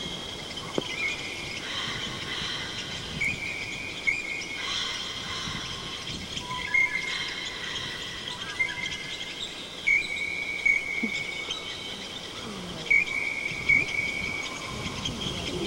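Woodland ambience: short, steady high-pitched calls repeating every few seconds over a faint background hum, typical of insects or birds in summer woods.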